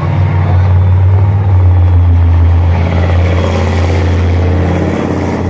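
Leopard 1-based armoured bridge-layer driving past through mud, its diesel engine running with a steady low rumble, and its tracks getting louder as it comes closest about three seconds in.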